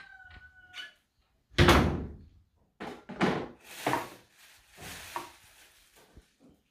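A wooden cupboard door bangs shut about a second and a half in, followed by a few softer knocks and rustling as small items are handled.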